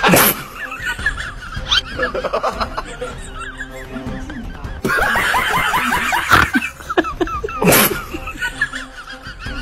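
Many short bursts of laughter and snickering over background music, with two sudden swishes, one at the start and one near the end.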